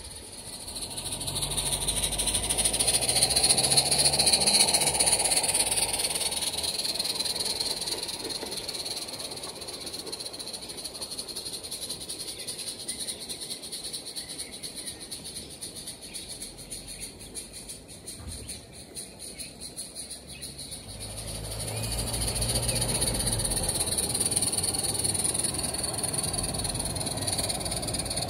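Live-steam garden-railway locomotives running with their trains, giving a steady steam hiss over the rumble and rattle of wheels on the track. It swells twice, about two seconds in and again over the last several seconds, as trains pass close.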